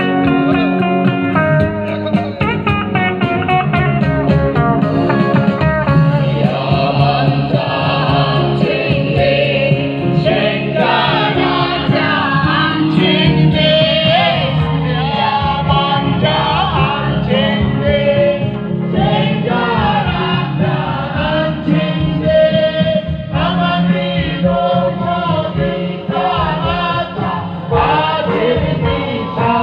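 A mixed group of men and women singing a song together over amplified instrumental accompaniment through a PA system; the voices come in about six seconds in, after an instrumental opening.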